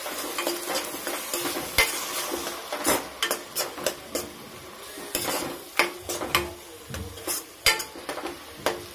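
A spatula stirring and scraping masala around a kadhai, with irregular scrapes and knocks against the pan over a steady sizzle. The sizzle is ground onion, ginger-garlic paste and tomato puree frying in oil.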